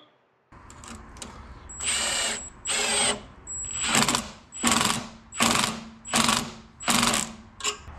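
Cordless impact wrench hammering in about seven short bursts, roughly a second apart, the first few led in by the brief whine of its motor spinning up. It is driving a bolt tight on the VW Beetle's alternator stand.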